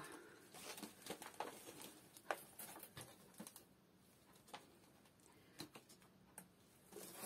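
Faint rustling of newspaper wrapping and light taps as paper-wrapped plastic plant cups are lifted out of a cardboard box and set down on a plastic tray. Scattered soft clicks, thinning out after the first few seconds.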